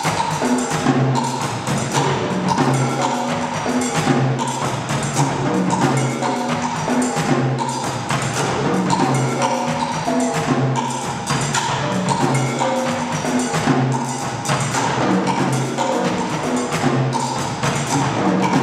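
Percussion duo playing a fast, dense passage with sticks on tom-toms of several pitches and other multi-percussion instruments, strokes following one another without a break.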